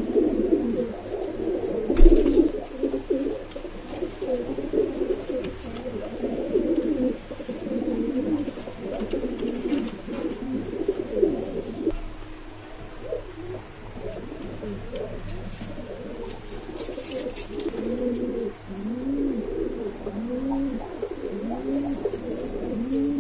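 Several Madrasi pigeons cooing, their coos overlapping throughout. Near the end a run of separate rising-and-falling coos comes about once a second, and there is a single thump about two seconds in.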